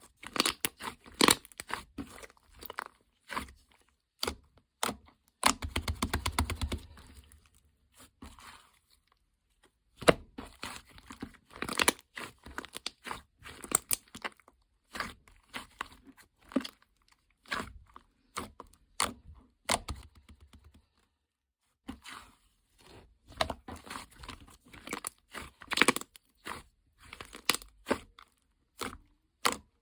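Hands handling crinkly plastic packaging and paper stationery items: irregular bursts of crinkling, tearing and sharp little clicks, with short pauses between them and a denser run of rustling about six seconds in.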